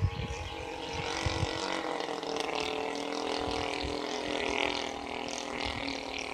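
Radio-controlled P-47 model airplane flying overhead, its motor giving a steady drone of several tones that dips slightly in pitch about two seconds in.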